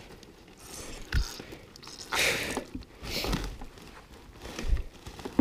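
Woven plastic sack rustling in a few short bursts as fish are put into it, with some dull knocks in between.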